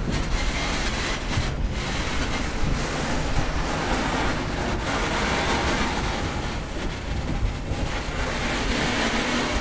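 Loaded bauxite gondola wagons rolling past, steel wheels on the rails making a steady rolling noise with occasional knocks.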